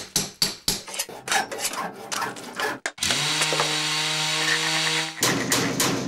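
Cartoon sound effects: a rapid run of sharp clicks and knocks, then a steady buzzing drone for about two seconds that cuts off suddenly, followed by more clicks.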